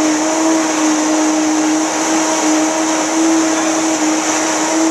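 Countertop blender running steadily at high speed, blending leafy greens, avocado and water into a green smoothie: a steady motor tone over a loud whooshing rush.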